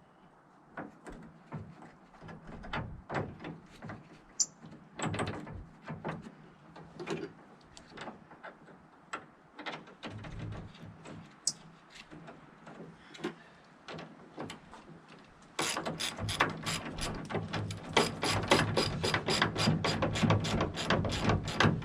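Hand ratchet wrench running in the bolts of a truck tailgate hinge: scattered clicks and knocks of parts being handled, then about two-thirds of the way in a steady, fast ratcheting at about four to five clicks a second.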